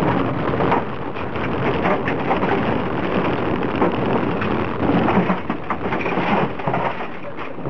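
Opel Corsa A 1.2's four-cylinder petrol engine pulling hard, heard from inside the cabin, under a dense crackling rattle of gravel thrown against the floor and wheel arches.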